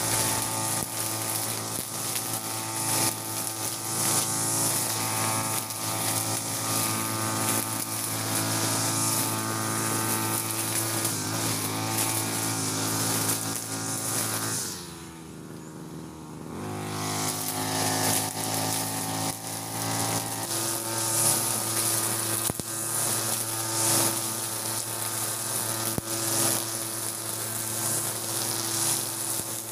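Backpack two-stroke brush cutter running at working speed, its trimmer head whipping 2.4 mm nylon line through grass with a steady hiss. The sound drops away briefly about halfway through, then returns with the engine note pulsing under load.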